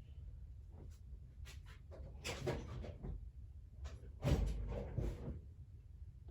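Rummaging through tools for a screwdriver: scattered clicks and knocks with two bursts of clatter, the louder one about four seconds in, over a steady low hum.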